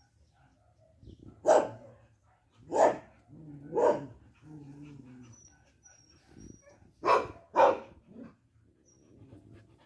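A dog barking: three sharp barks about a second apart, a pause, then a quick pair of barks about seven seconds in.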